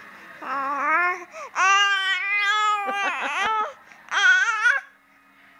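Baby babbling in drawn-out, wavering vowel sounds: four or five calls with short breaks between them, one of them held for over a second.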